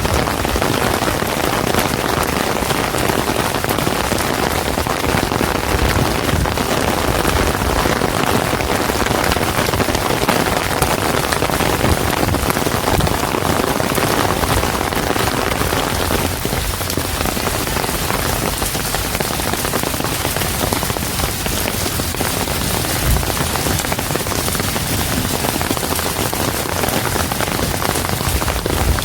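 Steady rain, a dense patter of many drops landing on hard surfaces.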